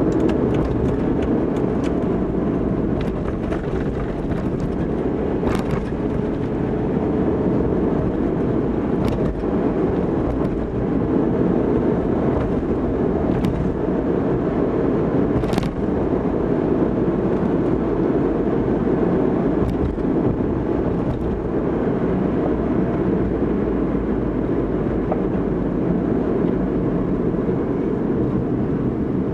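Car driving through city traffic, its steady engine and tyre noise heard from inside the cabin. A few sharp clicks come through in the first half.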